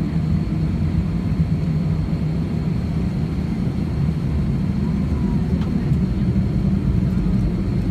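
Airbus A320 cabin noise while taxiing: a steady low rumble from the engines at low power and the airframe rolling, with a thin steady high whine above it.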